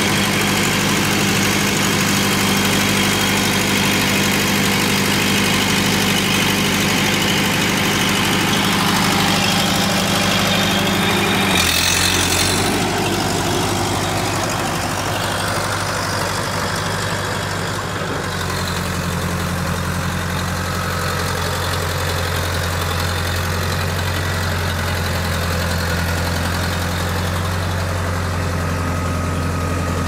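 John Deere 450 crawler dozer's diesel engine idling steadily. About twelve seconds in there is a brief noise and the tone of the engine sound shifts, after which it idles on.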